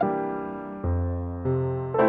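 Background piano music: slow notes and chords, each struck and left to ring and fade before the next, with new notes coming in about a second and a second and a half in.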